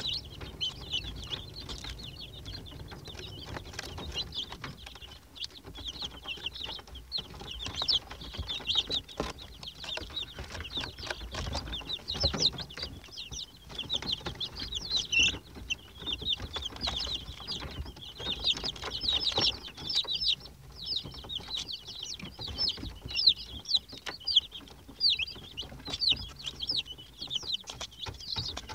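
A brood of young Rhode Island Red chicks peeping without pause: many short, high-pitched peeps that slide downward, overlapping one another, with scattered light taps among them.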